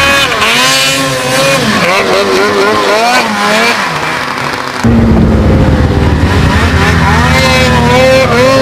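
Snowmobile engine revving up and down over and over as the sled climbs through deep snow. About five seconds in it cuts abruptly to a louder, steadier run at high revs.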